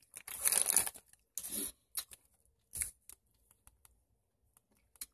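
Candy wrapper crinkling in the hands as a caramel is unwrapped: a longer rustle in the first second, a few shorter rustles over the next two seconds, then faint ticks.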